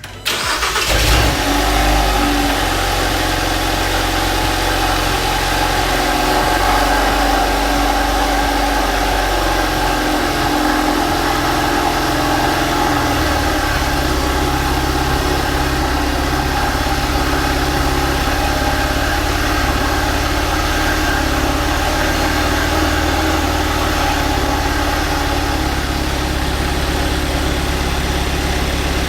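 Hyundai Veloster N's 2.0-litre turbocharged four-cylinder, fitted with a fresh aftermarket carbon fibre intake and turbo inlet, starts up and runs at a steady idle; the idle note changes about thirteen seconds in.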